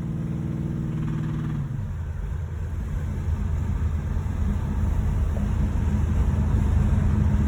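A 1986 Monte Carlo SS driving; its V8 engine has a knocking connecting rod. A steady engine tone fades out about two seconds in, leaving a low rumble that grows slowly louder.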